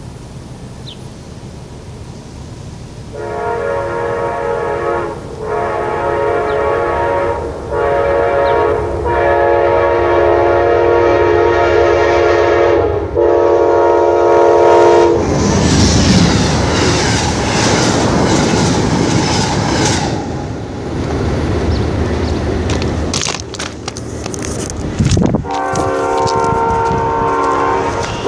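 Locomotive multi-chime air horn sounding several blasts, long and short. Then the train passes close with a loud rushing rumble of wheels and engine, and the horn sounds again near the end.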